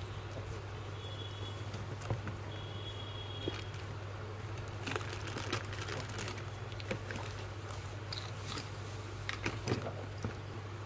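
Hands handling a cardboard box and the plastic-wrapped hub motor kit inside it: scattered light rustles, taps and crinkles, thicker about halfway through and near the end, over a steady low hum.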